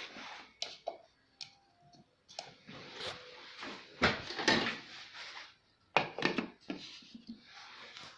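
Irregular handling noises: a run of knocks and clicks with short rustling, scraping stretches, loudest around four and six seconds in.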